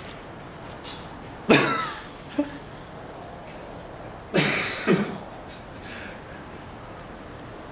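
Two short, loud, cough-like vocal bursts from a man, about three seconds apart, each followed by a smaller one about half a second later.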